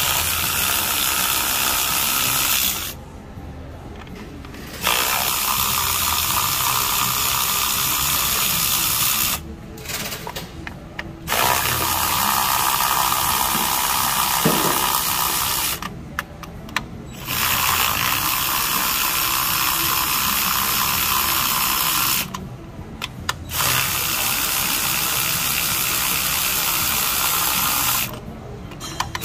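A power tool running in stretches of a few seconds at a time, with short pauses between, as fasteners are worked during the engine teardown.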